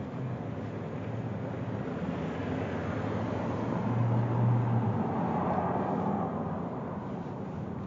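Motor-vehicle traffic noise: a low engine hum that swells about four seconds in and fades again, as a vehicle passes.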